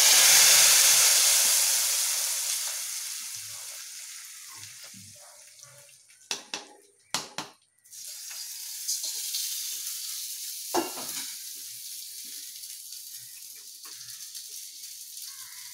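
Hot oil with fried mustard seeds and dried red chillies poured onto yogurt-coconut kichadi in a clay pot, sizzling loudly at once and fading over several seconds. A few sharp clicks come about six to seven seconds in, then a softer sizzle carries on.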